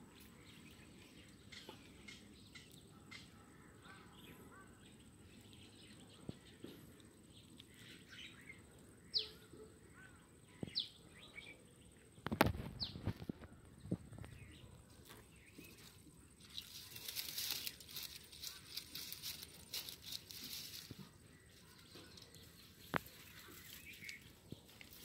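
Faint outdoor ambience with scattered short bird chirps. A single heavy thump comes about halfway through, followed a few seconds later by a stretch of rustling hiss.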